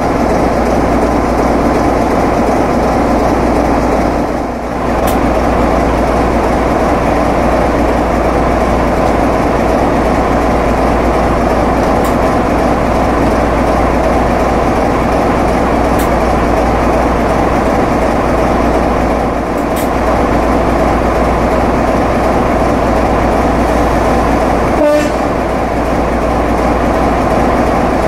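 BRCW Class 33 diesel locomotive's Sulzer eight-cylinder engine idling steadily while the locomotive stands, with a brief tone once near the end.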